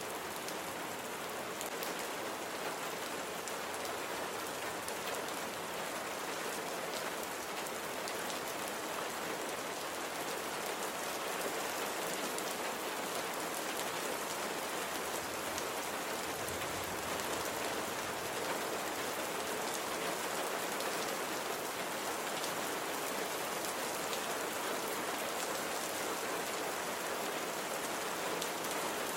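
Steady rain falling, a dense even patter of drops hitting a surface, with occasional sharper individual drop ticks.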